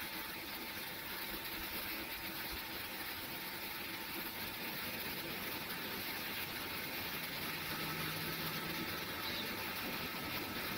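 Steady jet engine and airflow noise inside an airliner cabin: an even hiss with a faint steady whine, growing slightly louder.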